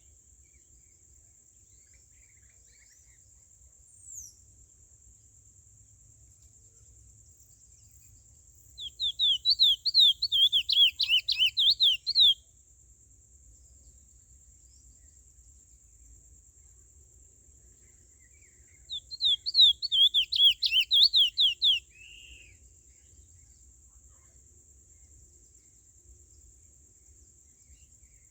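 Curió (chestnut-bellied seed finch) singing two bursts of rapid, quickly repeated whistled notes, each about three seconds long, about ten seconds apart, with a steady high-pitched whine behind.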